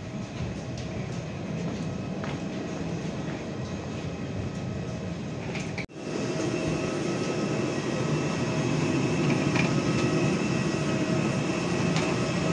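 Steady mechanical rumble with a faint whine from a parked airliner's air-conditioning and power units. It cuts out briefly just before six seconds and is louder afterwards, at the aircraft's boarding door.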